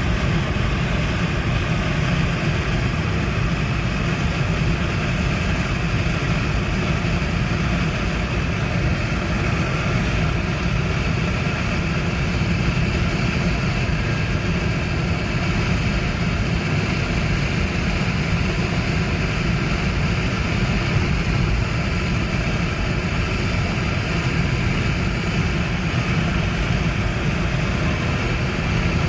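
Chevrolet Trailblazer running steadily: an even low drone from the engine and road that does not change in pace or level.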